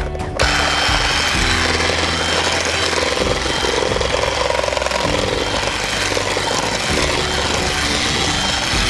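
Electric hand mixer running steadily, its beaters churning in a stainless steel mixing bowl.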